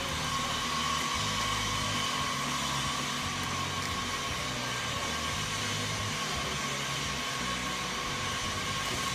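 Steady hiss and hum of a large store's background noise, even throughout, with a faint steady tone running through it.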